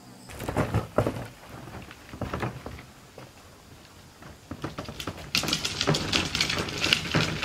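Wheeled plastic garbage bin rattling and clattering as it is rolled over the lawn: an irregular run of clicks and knocks that turns denser and louder about five seconds in.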